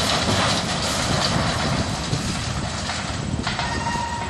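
Demolition crane's engine running under load as it swings the wrecking ball, a steady low rumble under a broad hiss that fades about three and a half seconds in, when a steady high whine comes in.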